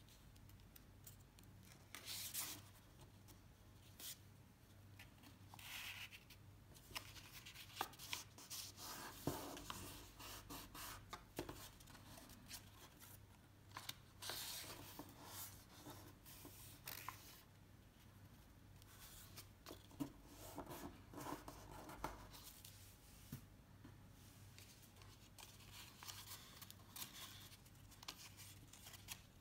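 Faint rustling and crinkling of a sheet of paper being folded by hand, with fingers sliding along the creases in short scraping swishes and now and then a light click or tap.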